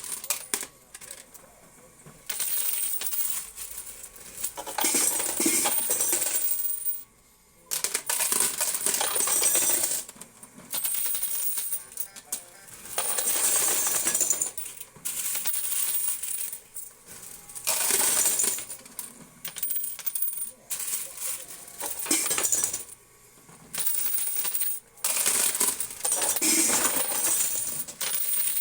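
Quarters clattering and clinking in a coin pusher game, in repeated bursts of about one to two seconds each as handfuls of coins drop and spill.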